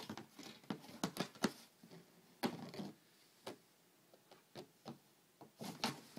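Irregular taps, scratches and scrapes on a cardboard box from a cat batting and pawing inside it.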